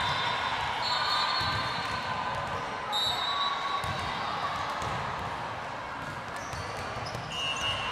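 A ball thudding and sneakers giving short high squeaks on a gym floor during play, over a steady murmur of spectators' voices.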